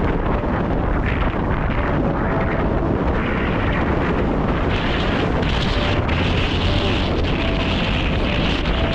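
Wind rushing and buffeting over an action camera's microphone, mixed with skis hissing through tracked snow, during a downhill ski run.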